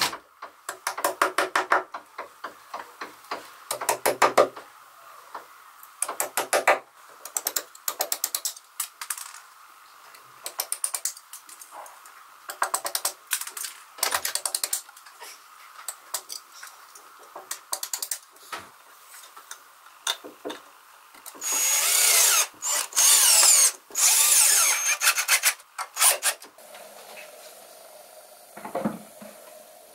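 Runs of rapid light taps from a small mallet knocking pieces into holes in the wall, with a louder, harsher burst of noise lasting several seconds a little past the middle.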